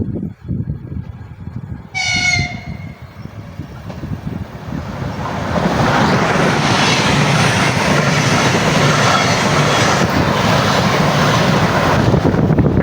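A train horn sounds one short blast about two seconds in. Then a train passes close by, its loud, steady rail noise building from about five seconds in.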